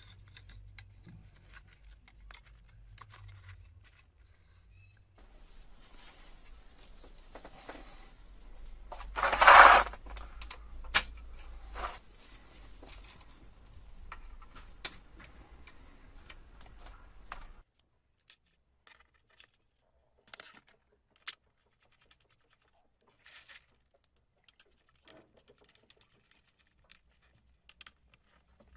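Light clicks, taps and small rattles of hand tools and parts being handled during work on a PS4 motherboard, with one louder rustling burst about ten seconds in. A faint steady hiss runs under the first half, and only sparse clicks are left after it stops.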